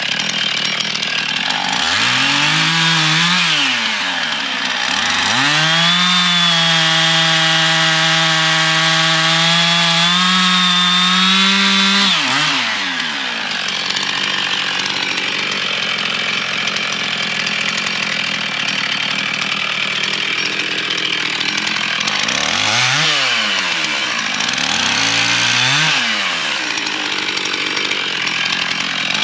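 Gas chainsaw cutting firewood: it revs up and back down a couple of times, holds at full throttle for about six seconds while cutting, then drops to idle, with three more short revs near the end.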